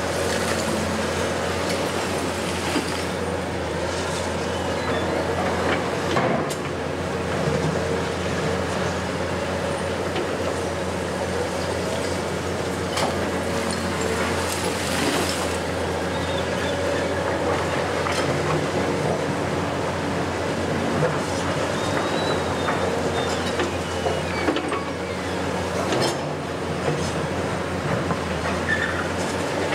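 Hitachi 870 XXL long-reach demolition excavator running steadily as its high-reach tool breaks into the concrete of a building, with several sharp cracks of concrete and debris at intervals.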